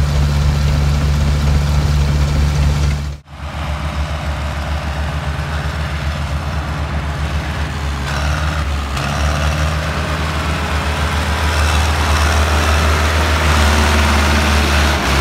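Heavy diesel engines run steadily, then after a sudden cut about three seconds in, a Farmtrac tractor's diesel engine pulls a loaded grain trolley. The tractor gets louder as it approaches and passes close by near the end.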